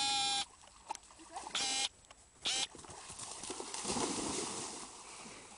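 Three high-pitched cries, the first held for about a second and the other two short, then about four seconds in a noisy splashing as giant schnauzers plunge through shallow lake water.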